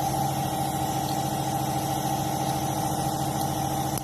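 Chevrolet Malibu's 2.4-litre four-cylinder engine idling steadily, with a constant high hum over the engine note.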